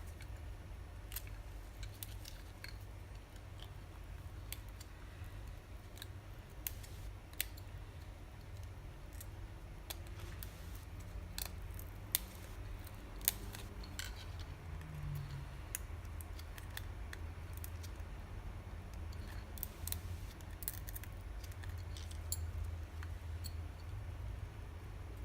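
Hand cutters snipping at the parts of a crushed remote microphone: a series of sharp, irregular clicks and snips.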